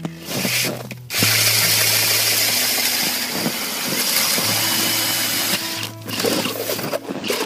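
A power drill spinning a spiral ice auger, boring through thick river ice with a steady, loud grinding that starts about a second in and eases off about two thirds of the way through. Background music plays underneath.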